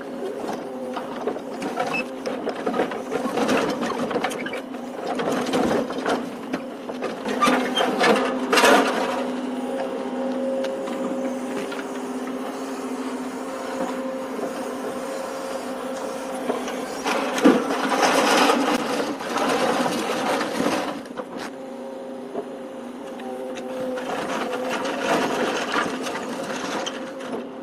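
Truck-mounted grapple crane working scrap metal: the engine and hydraulics run with a steady drone, and scrap metal clanks and crunches in the grapple's jaws in bursts, loudest about a third of the way in and again around two-thirds.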